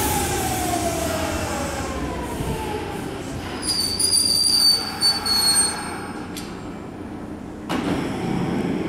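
Kintetsu 1252 series electric train braking into a station: a whine falls in pitch over the first few seconds as it slows, then a high brake squeal from about four to six seconds in as it comes to a stop. A sudden rush of noise near the end.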